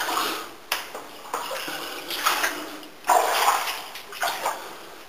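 Footsteps splashing through shallow water and mud on a mine tunnel floor, about five uneven steps.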